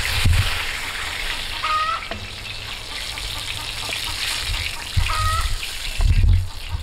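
Vegetables sizzling steadily in oil on a hot saj griddle over a wood fire, stirred and turned with a wooden spatula. There are a few low thumps, the loudest near the start and about six seconds in.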